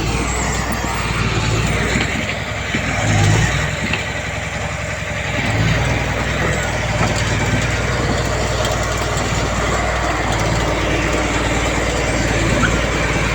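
Heavy diesel engine of earthmoving machinery running steadily under varying load, with a short swell about three seconds in and another rise near six seconds.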